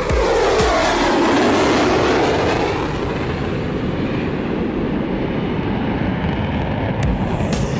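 F-35A Lightning II's Pratt & Whitney F135 jet engine making a loud, steady roar as it flies past, its pitch sweeping downward in the first few seconds as it passes. The sound changes abruptly about seven seconds in.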